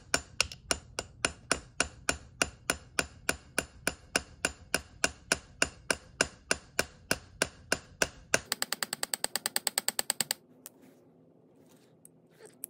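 Light, steady hammer taps, about three a second, on a roll pin starter punch, driving a roll pin into the bolt catch pin hole of an AR-15 lower receiver. The pin goes in slowly. About eight and a half seconds in, the taps speed up into a quick, lighter patter for about two seconds, then stop. One more tap comes near the end.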